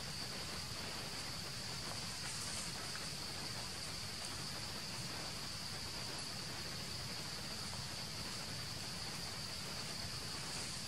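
Steady, unbroken high-pitched insect buzz holding one pitch, over a constant hiss of forest background noise.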